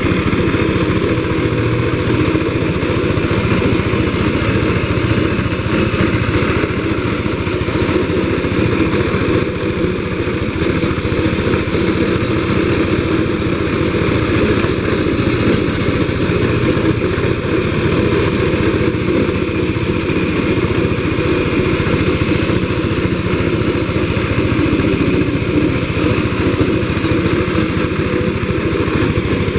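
Small engine of a walk-behind road roller running steadily at a constant speed.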